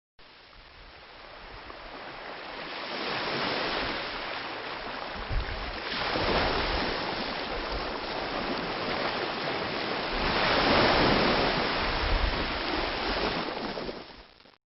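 Ocean waves breaking on a beach: surf rising and falling in surges, with the biggest breakers about six seconds and eleven seconds in, then fading out near the end.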